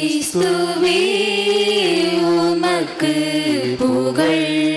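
Sung Tamil liturgical chant: voices holding long steady notes that step from one pitch to another every second or so, the sung acclamation after the Gospel reading at Mass.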